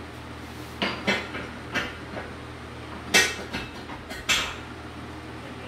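A run of about six sharp metallic clanks and knocks from steel gym equipment being handled and shifted, the loudest a little past three seconds in.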